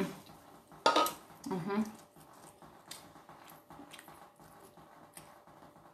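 Bare hands squeezing and breaking up soft, warm cooked rice, part sticky rice, to cool it: faint squishing with a few light scattered clicks.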